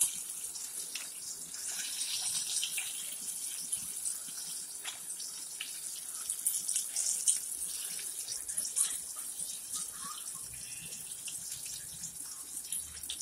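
Hot oil sizzling and crackling steadily in a frying pan, with a few sharp clicks from serving utensils.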